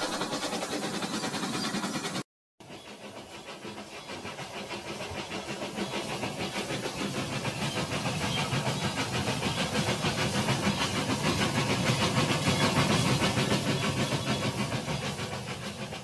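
Battery-powered toy train with a steam-style locomotive running on plastic track. Its motor and wheels make a rapid rhythmic rattle that grows louder as it approaches and then fades as it passes. There is a brief cut to silence about two seconds in.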